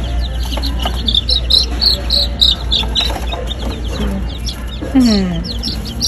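A brooder full of baby chicks peeping: a rapid, overlapping run of short high cheeps.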